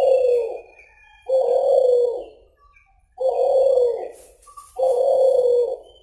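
Caged suhu (kulhu) dove cooing: four long, low coos of about a second each, evenly spaced. Faint thin high whistles sound in the pauses.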